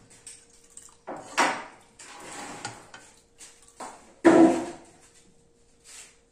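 Metal ladle scraping and knocking against an aluminium cooking pot as bean broth is scooped out, in several separate clatters, the loudest about four seconds in. A faint steady hum runs underneath.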